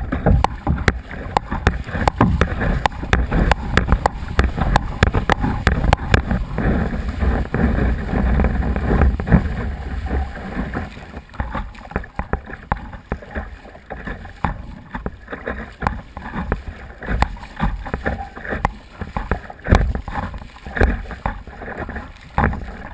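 GoPro Hero 2 camera rocking on a loose strap mount at a sit-on-top kayak's bow, knocking quickly and irregularly so that it sounds like a small table-tennis game, as the kayak is paddled through surf. Underneath, water splashes around the hull and wind rushes on the microphone.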